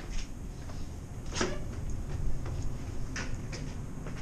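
Footsteps going down stairs and onto a floor: a few irregular knocks and clicks, the loudest about a second and a half in. Under them runs the steady low rumble of a ship's engines.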